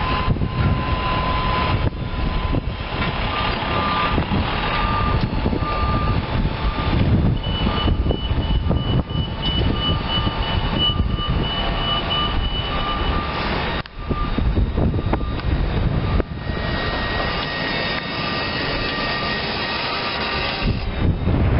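Outdoor noise with wind rumbling on the microphone, changing abruptly at several cuts, with a faint beep repeating for several seconds in the middle.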